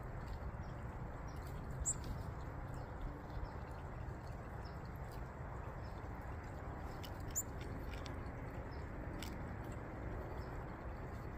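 Goldfinches cracking seed at a tray feeder: faint, scattered small ticks over a steady low background rumble, with a couple of brief high chirps.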